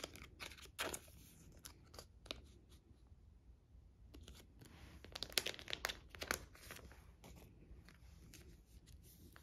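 Crinkling and rustling of thin plastic sleeves as a photocard in a clear sleeve is handled and slid into a binder page pocket. The crackles come in scattered short bursts, busiest a little past the middle.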